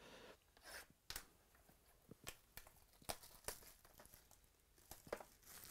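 Faint tearing and crinkling as a sealed Bowman High Tek trading-card box is unwrapped and opened by hand, with scattered small clicks and rustles.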